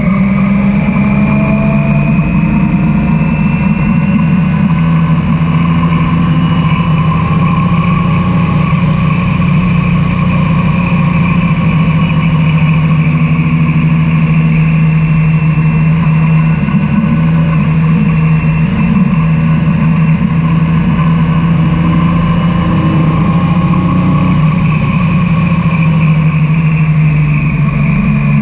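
Triumph Tiger 800's three-cylinder engine running loud under way, holding a fairly steady note that drifts gently up and down with the throttle.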